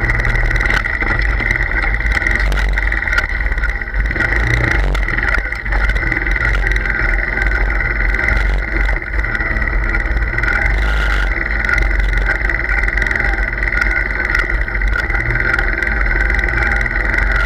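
A vehicle's motor running steadily with a constant high whine, over a low rumble of wind and vibration on the microphone as it moves across rough ground.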